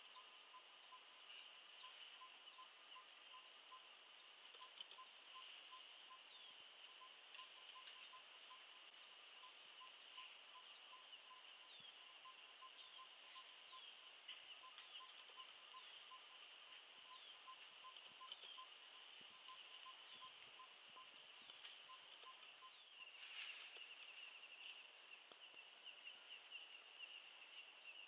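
Faint insect chorus: a steady high buzz with rhythmic pulsing calls and scattered short chirps. The pulsing stops and the chorus changes at an edit near the end.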